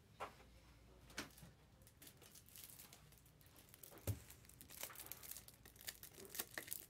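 Faint crinkling and tearing of trading-card packaging being handled, with scattered light clicks and a soft thump about four seconds in.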